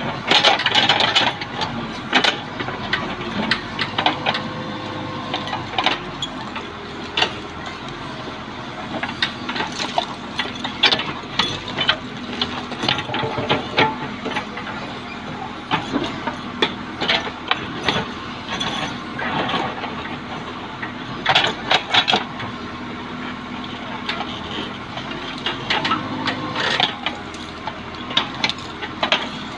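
Case 580L backhoe loader's diesel engine running steadily while it digs, with frequent irregular clanks and knocks from the digging.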